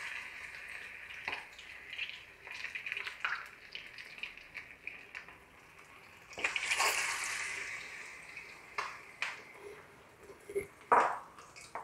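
Batter-coated chicken pieces deep-frying in hot soybean oil in a karai: a hissing sizzle with scattered crackles and pops. It swells to its loudest about six and a half seconds in, as another coated piece goes into the oil, then settles back.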